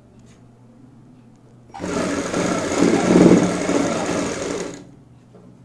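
Sewing machine stitching a seam through layered fabric. It starts about two seconds in, runs for about three seconds, grows louder in the middle, then eases off and stops.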